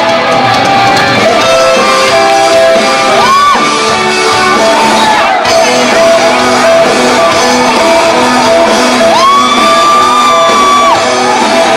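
Live rock band playing loudly, with drum kit, bass and guitar under a male singer who holds long high notes, one about three seconds in and a longer one near the end.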